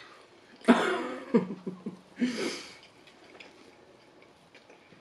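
A woman coughing with her mouth full: a sharp cough about two-thirds of a second in, a short one after it, and a rougher, breathy cough a little past two seconds.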